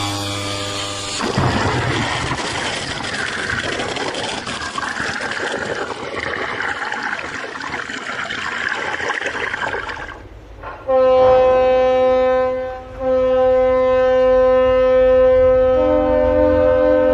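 Rushing, splashing water from a ship side-launched into the water, starting suddenly about a second in and dying away after about ten seconds. Then a ship's horn sounds a long steady blast, broken briefly once, with a second note joining near the end.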